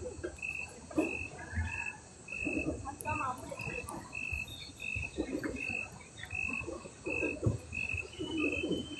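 A night-calling cricket or frog repeating one short high chirp evenly, about twice a second, over a faint low background murmur.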